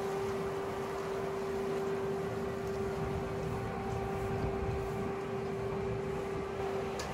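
Steady machinery hum from a passing heavy-lift cargo ship, one held tone over a low rumble. A single short click comes near the end.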